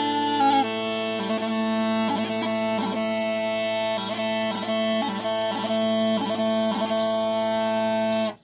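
Scottish smallpipes playing a tune: steady drones under the chanter melody, with quick grace-note flicks between notes. The chanter has tape over some holes to bring sharp notes down. The playing stops abruptly near the end.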